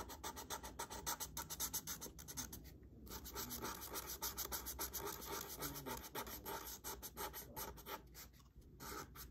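Felt-tip marker scratching on paper in quick, repeated back-and-forth coloring strokes, with a couple of brief pauses.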